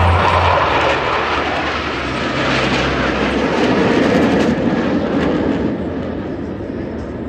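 Jet engine noise of an aerobatic jet formation flying over, a broad rushing roar that swells about halfway through and then fades.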